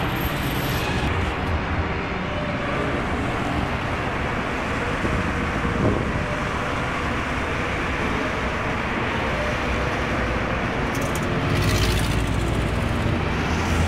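Road traffic on a busy multi-lane avenue: a steady wash of car engine and tyre noise as vehicles drive past, swelling louder near the end. It is picked up by a mobile phone's built-in microphone.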